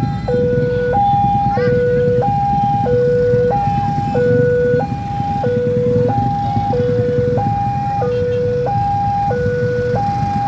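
Railway level-crossing warning alarm sounding its steady two-tone signal. A low and a higher tone alternate, about one low-high cycle every 1.3 s, signalling an approaching train. A low rumble of jammed road traffic sits underneath.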